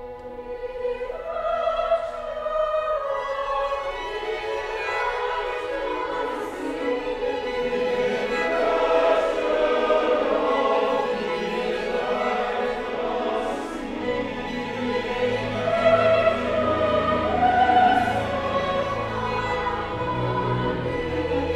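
A large choir singing over a string orchestra. The voices come in about a second in, above the sustained strings, and a deeper bass line joins about two-thirds of the way through.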